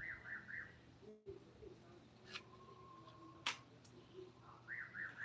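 A bird calling twice, each call a quick phrase of three chirps, with two sharp taps in between over a low steady hum.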